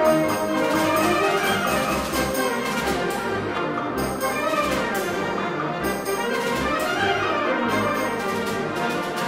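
Wind orchestra playing, with the brass section, trumpets and trombones, carrying the music.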